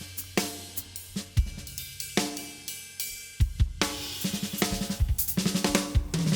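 Acoustic drum kit being played: kick, snare and cymbal strokes in a steady groove, breaking into a run of quicker strokes about four seconds in.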